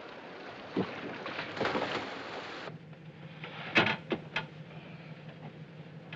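Film sound effects: a steady noisy haze with a few knocks cuts off suddenly about two and a half seconds in. A quiet cabin follows, with a steady low hum and, about a second later, three sharp clicks in quick succession.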